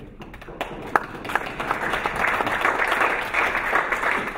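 Audience applauding. Scattered claps about half a second in build into steady applause.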